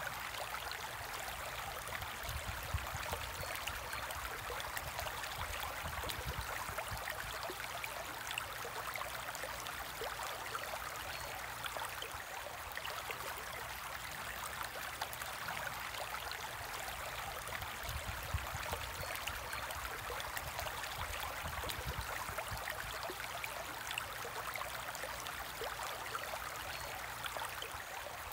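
Steady trickling and bubbling of water circulating in a home aquarium, a continuous fine crackle of small splashes.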